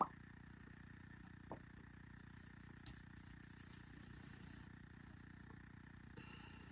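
Near silence: a steady low room hum, with a small click right at the start and a faint tick about a second and a half in.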